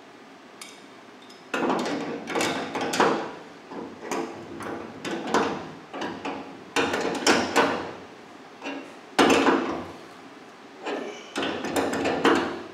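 Metal tool knocks and scraping on a rotary cutter's steel hitch frame as it is bolted back together with a pipe wrench: irregular clanks in short bursts, the loudest about nine seconds in.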